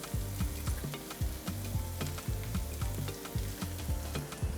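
Carrots and other vegetables sizzling as they sauté in a pan, with frequent short clicks and scrapes of a spoon or spatula stirring them against the pan.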